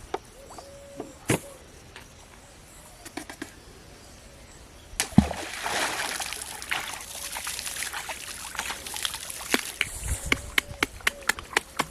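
Water splashing: a sudden loud splash about five seconds in, a couple of seconds of sloshing after it, then a run of short, sharp splashes and drips toward the end.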